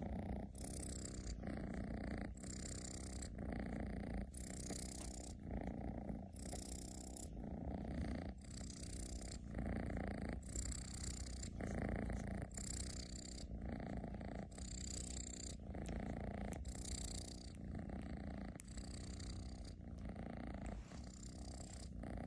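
Domestic cat snoring with a rumbling, purr-like rattle, like a tractor. It swells and fades with each breath, about once a second.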